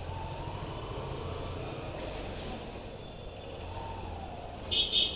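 Hero Hunk single-cylinder motorcycle engine running at low speed in street traffic, a steady rumble whose pitch rises and falls. Near the end, two short, loud, shrill blasts.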